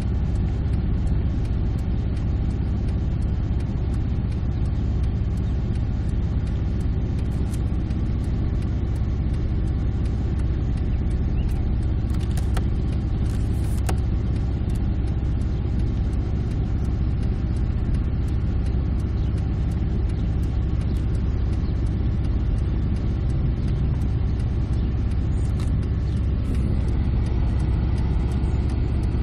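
Car engine and tyres rolling at walking pace, heard from inside the cabin: a steady low rumble.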